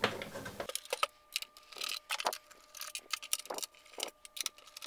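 Irregular small clicks and ticks of a screwdriver working the screws out of the plastic base of a Commodore 1571 disk drive.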